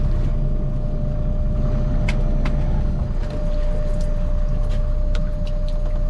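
Boat engine running steadily with a low rumble, a constant hum-like tone above it, and scattered light clicks and knocks.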